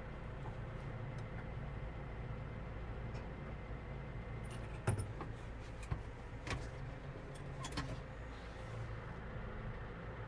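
New Holland T5.140 tractor engine idling steadily, heard inside the cab. A handful of sharp clicks and knocks from the cab controls and levers being worked sit over it, the loudest about five seconds in.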